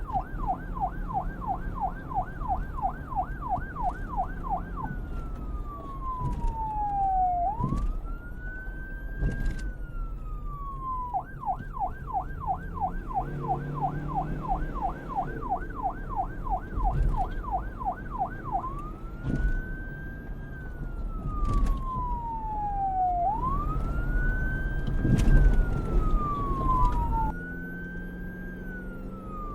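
Electronic police car siren switching between a fast yelp, about four cycles a second, and a slow wail that falls over two to three seconds and swoops back up. A steady low rumble runs underneath.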